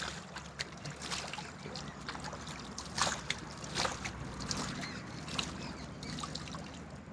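Hands scooping water from a shallow stream and splashing it onto the face: a string of short, irregular splashes and drips over a steady, quiet wash of flowing water.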